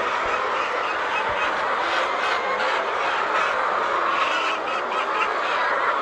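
A large flock of laying hens calling and clucking all at once, a dense, steady din of many overlapping voices.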